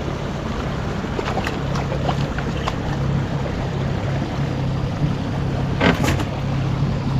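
A boat's motor hums steadily at a low pitch under a few small clicks and knocks. About six seconds in there is a brief splash, as a hooked zander thrashes at the surface beside the boat.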